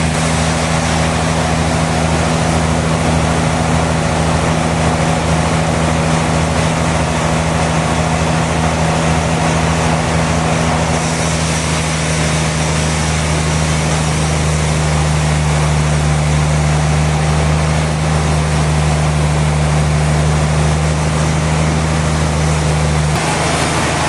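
Sawmill machinery running steadily: a loud motor hum under a dense rushing noise, which grows brighter about halfway through and shifts shortly before the end.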